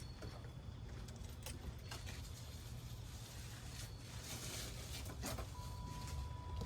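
A few faint, scattered clicks and light knocks of grill parts being handled, over a low steady rumble; a thin steady high tone comes in near the end.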